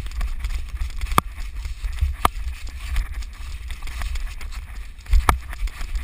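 Footsteps of a person running through woodland, with low rumble and thumps from the head-mounted action camera's microphone. Three sharp clicks come about a second in, about two seconds in and near the end.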